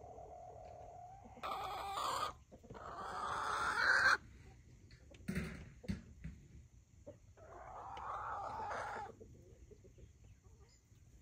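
Chickens giving a series of loud, drawn-out calls. A low held call at the start gives way to a call about a second and a half in. A longer one grows louder and cuts off sharply around four seconds, and another comes near eight seconds, with a short knock in between.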